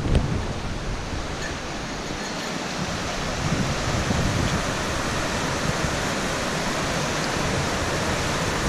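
Rushing mountain creek tumbling over rocks and small cascades, a steady roar of water that grows a little louder a few seconds in.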